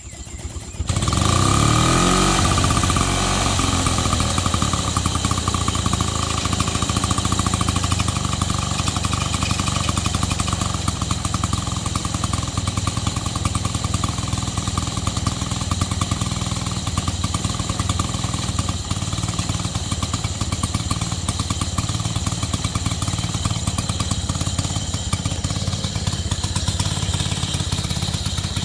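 1927 ATCO Standard 16-inch lawnmower's petrol engine starting warm without choke: it catches within the first second, picks up speed over the next couple of seconds, then runs steadily.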